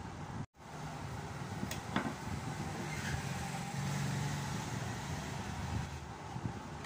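Steady low background rumble, with a low hum that grows louder for a second or two about halfway through and a single sharp click about two seconds in. The sound drops out for a moment just after the start.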